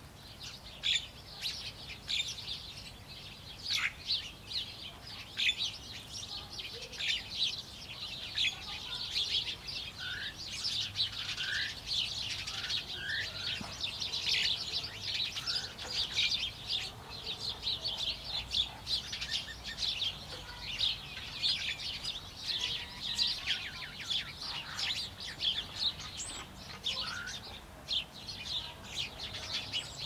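A busy chorus of small birds chirping: many short high chirps overlapping, with a few short sliding whistle notes.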